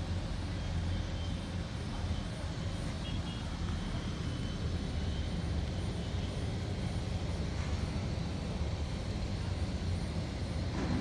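Steady low background rumble, even throughout, with no distinct events.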